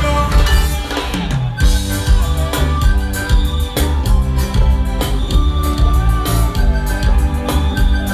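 Loud live band music over a PA at a sound check: a heavy bass line and drum kit beat keep a steady groove, with held melodic lines over them.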